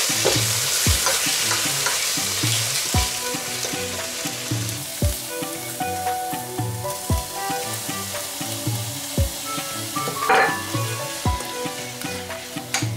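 Onion, ginger and garlic paste sizzling as it fries in a pressure cooker, with a spatula stirring and scraping the pot. About halfway through, chopped tomatoes are tipped in and stirred, and the sizzle turns quieter.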